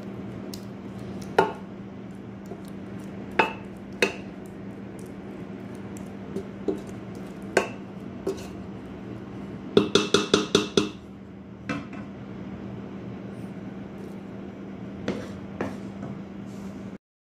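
Wooden spoon knocking against a stainless steel cooking pot while sauce is spread over raw chicken: scattered single knocks, then a quick run of about six taps a little past halfway. A steady low hum sits underneath.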